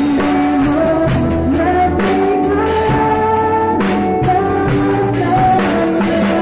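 Christian worship song with singing over a band, a drum kit playing along with stick strokes on the toms and cymbal.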